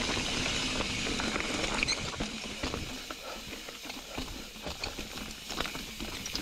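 Ibis Ripmo v2 mountain bike rolling fast over loose rock on a rocky descent. The tyres crunch over stones and there is a steady patter of sharp clicks and rattles from the rocks and the bike, busier from about two seconds in.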